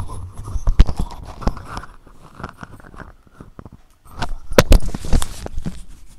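Grated bottle gourd squeezed by hand over a steel bowl: irregular wet squishing and dripping water, with several sharp knocks, the loudest a little after the middle.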